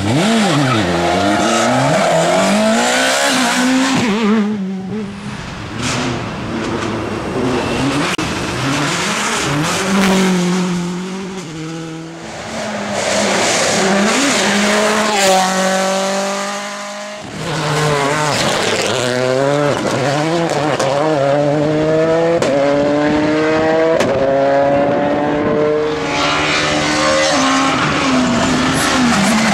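Rally cars driven hard, one after another: engines revving high, shifting through the gears and lifting off, with tyres squealing as the cars slide.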